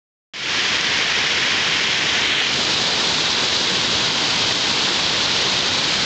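Shallow river water rushing and splashing over rock ledges in small rapids, a steady loud hiss that cuts in just after the start.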